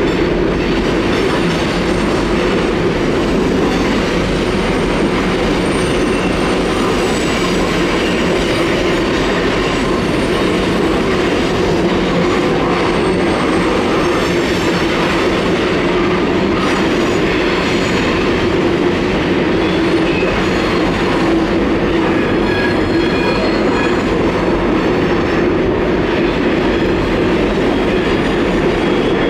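Freight train of loaded hopper cars rolling steadily across a curved steel trestle bridge, making a continuous rumble and rattle of wheels on the steel structure. Faint high-pitched wheel squeals come and go from the curve.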